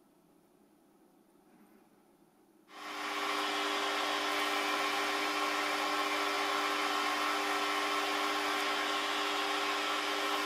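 Chinese hobby metal lathe starting up under three seconds in and then running steadily with a constant hum, while an abrasive strip pressed against the spinning steel part adds an even hiss as it is polished.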